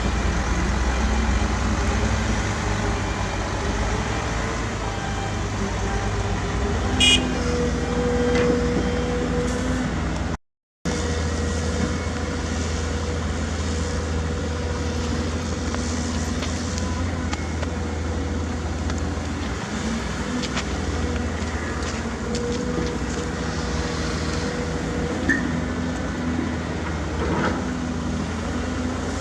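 Diesel engines of heavy earthmoving machinery (excavators and dump trucks) running steadily. There is a short high-pitched sound about seven seconds in, and a split-second gap about ten seconds in.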